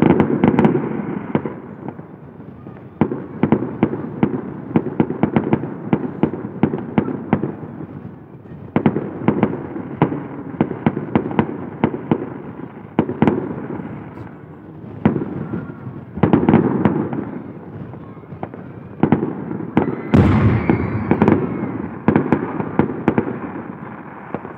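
Fireworks display: aerial shells going off in a rapid, continuous run of sharp bangs and crackles, with heavier clusters of booms every few seconds.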